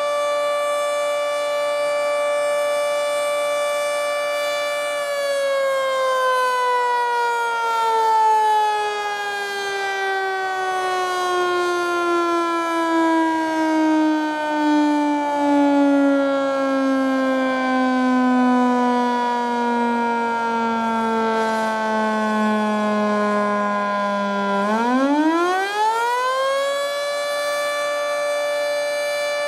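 Federal Signal 2T22A three-phase dual-tone warning siren, its top intake blocked, sounding the fire signal. It holds a steady chord at full pitch, then about five seconds in starts a long, slow wind-down in pitch. Near the end it winds quickly back up to full pitch and holds there.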